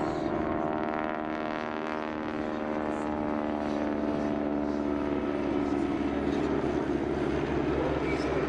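A formation of vintage army aircraft flying past: de Havilland Beaver and Auster propeller planes with Sioux and Scout helicopters, their engines and rotors making a steady droning hum that slowly falls in pitch as they pass, with a deeper rumble building toward the end.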